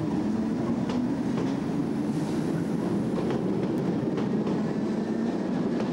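DART electric multiple-unit train pulling out past the platform: a steady electric hum with scattered sharp clicks from the wheels on the track.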